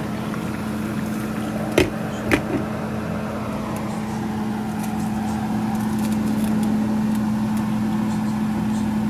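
A steady mechanical hum with one constant tone, interrupted about two seconds in by two short knocks half a second apart.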